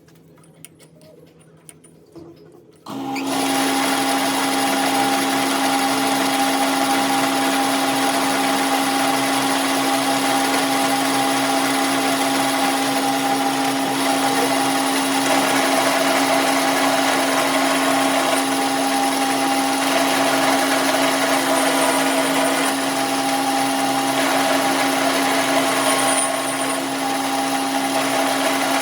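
An electric power tool or shop machine starts about three seconds in and runs steadily with a constant hum.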